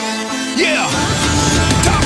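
Wrestling entrance-theme music mashup: a sweeping effect about half a second in, then heavy bass drops in about a second in and the music gets louder.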